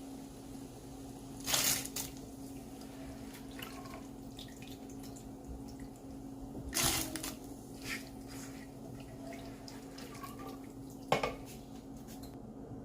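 Washed beans being poured into a pot of water: a few short splashes, with gaps of several seconds between them, over a steady low hum.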